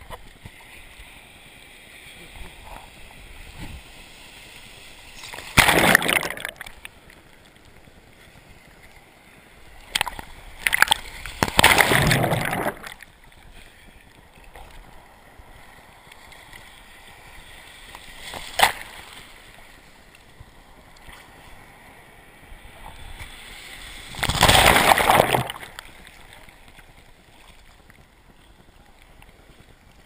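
Surf water sloshing and gurgling against a waterproof action camera held at the water's surface. Loud rushes of splashing come as waves wash over it: about six seconds in, again around eleven to thirteen seconds, a short one near eighteen seconds, and near twenty-five seconds.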